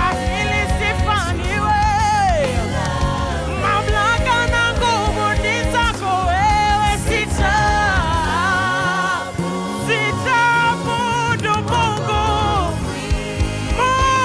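Live gospel worship music: singers with a band of bass, keyboard and drums.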